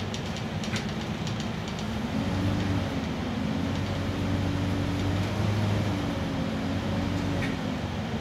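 Scania N94UB bus's 9-litre diesel engine running as the bus drives along, heard from inside the saloon, its note rising a couple of seconds in and easing off near the end. A few light rattling clicks in the first two seconds.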